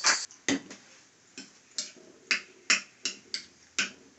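A fork clinking against a glass bowl while stirring a beaten egg mixture, about two light clicks a second.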